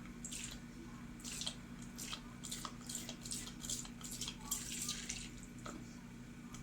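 A liquid being poured or squeezed into a container in short, irregular splashy spurts while making slime.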